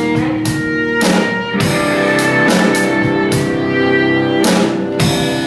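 Instrumental band music: guitar with bowed strings playing held chords, with sharp struck accents every second or so.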